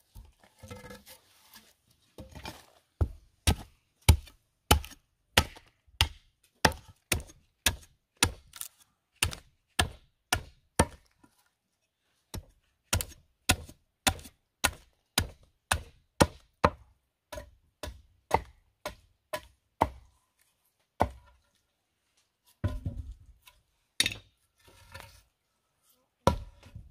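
Broad-bladed machete chopping into wood, splitting a short log into kindling: a steady run of sharp chops about two a second, a short pause a little before halfway, then fewer, more uneven strokes near the end.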